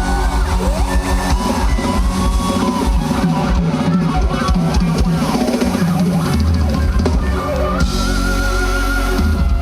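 Pop dance track with a heavy drum-kit beat and bass drum, played loud.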